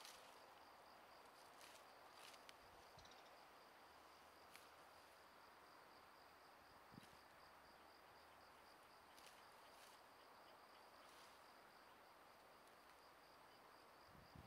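Faint, steady, high-pitched insect trill at one pitch, pulsing rapidly, with a few soft clicks now and then.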